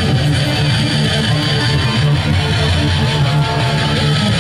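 Live rock band playing loud and steady, with electric guitars, bass guitar and drums.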